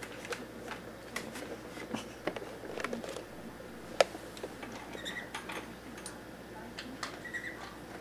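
Scattered light ticks and clicks of pets moving about a linoleum kitchen floor, with one sharp click about four seconds in and a few soft, short cockatiel chirps.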